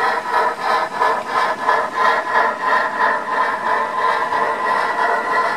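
HO-scale model steam train running: the ESU LokSound decoder's steam exhaust beats quickly and evenly, about four a second, over the steady running noise of the model train. The beat smooths out near the end.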